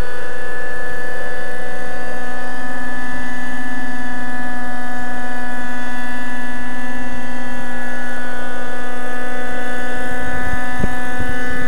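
Radio-controlled nitro helicopter, a Thunder Tiger Raptor 50 V.2, flying close: its 50-size two-stroke glow engine gives a steady high whine along with the rotor noise, holding a constant pitch. Low buffeting on the microphone comes in over the last few seconds as it hovers near.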